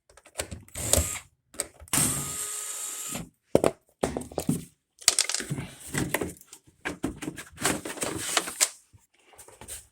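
Hand tools and metal parts clattering and scraping while working in a refrigerator's machine compartment, with a cordless power driver running once for about a second, about two seconds in.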